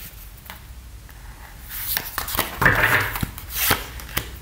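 Tarot cards being drawn from the deck and laid down on a wooden table: quiet at first, then from about two seconds in soft sliding rustles of card on card and several light taps.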